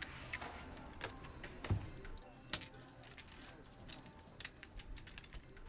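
Poker chips clicking and clinking together as they are handled and stacked at the table: a scatter of sharp, irregular clicks.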